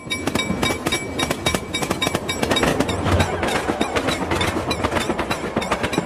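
A steam train whistle sound effect heavily processed into a dense, crackling noise made of rapid clicks. Faint traces of the whistle's steady tones show through for the first couple of seconds.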